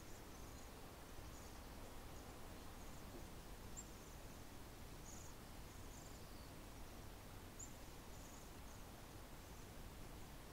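A flock of cedar waxwings giving faint, thin, high-pitched calls: short notes scattered through, one or two a second, over a steady low background rumble.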